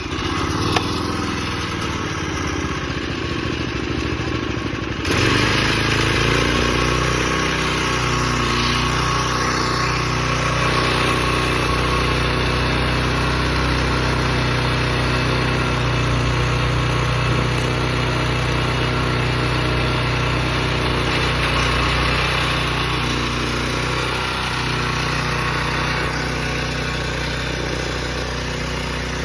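Honda Komame F210 mini tiller's small four-stroke engine running, its speed sagging over the first few seconds, then rising abruptly about five seconds in and holding steady.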